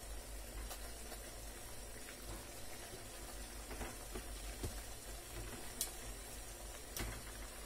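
Water boiling in a stainless-steel steamer pot, a faint steady hiss, with a few clicks as banana pieces are set down on the perforated steel steamer tray; two sharper clicks come near the end.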